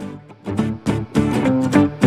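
Background instrumental music with a quick run of notes.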